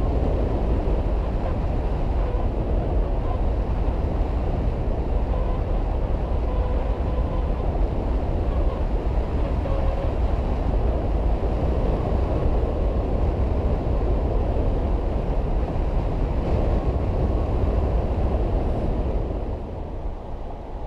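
Airflow rushing over the microphone of a GoPro mounted on a hang glider in flight: a steady low rumble of wind noise that drops in level near the end.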